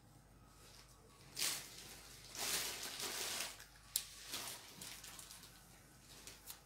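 Embroidered fabric lace trim rustling as it is handled and moved across a table, in several short bursts, with one sharp tap just before the middle.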